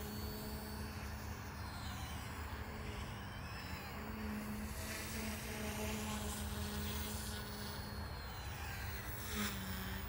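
OMP Hobby M1 electric RC helicopter in flight, its rotor and motor giving a steady hum that shifts in pitch briefly near the end.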